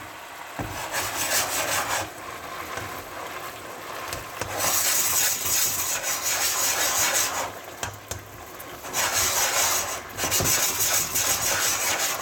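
Wooden spatula stirring and scraping across a non-stick pan while a creamy mushroom sauce bubbles and sizzles. The scraping comes in two longer, louder spells, about four and a half seconds in and again about nine seconds in.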